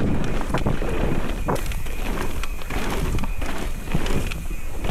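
Mountain bike riding down a dirt trail: wind rushing over the microphone along with tyre noise, with frequent short rattles and knocks from bumps.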